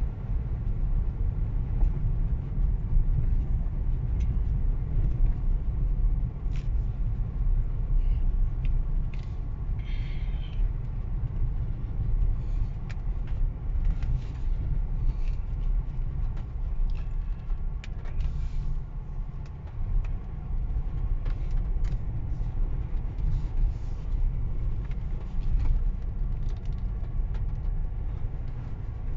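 Steady low rumble inside the cab of a Ford Ranger Raptor pickup driving over a rutted dirt and gravel track: engine and tyre noise, with scattered clicks and knocks from the rough surface.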